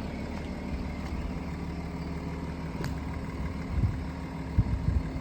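BMW 335d's twin-turbo straight-six diesel engine idling steadily, with a few short low thumps near the end.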